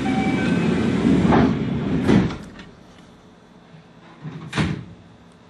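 A commuter train's passenger doors sliding shut with a loud rushing noise and a few short beeps at the start, ending in a thud about two seconds in. A knock follows near the end.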